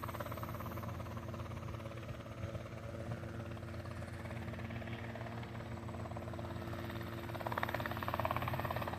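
Helicopter running on the ground just after touching down: a steady engine and rotor hum with several held tones and a fast, even pulsing, growing a little louder near the end.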